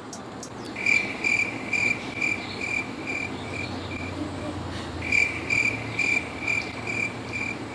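Toy lie-detector shock machine beeping in an even pulse, about two short high beeps a second, while a hand rests on it for the reading. The beeping breaks off for a moment after the middle, then starts again.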